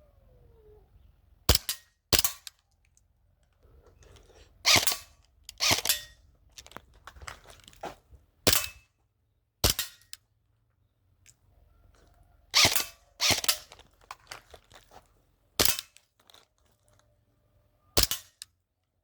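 Airsoft guns firing single shots, about ten in all at irregular spacing, several in quick pairs about half a second apart.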